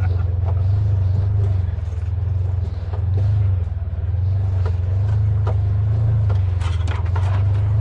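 Side-by-side buggy's engine running steadily at low revs in low range while crawling over a rough trail, with scattered knocks and clatters from the ride over the rough ground.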